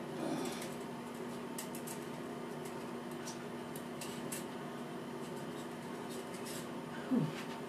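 Steady low hum of a small tiled bathroom, with a few faint light clicks and a short falling vocal sound near the end.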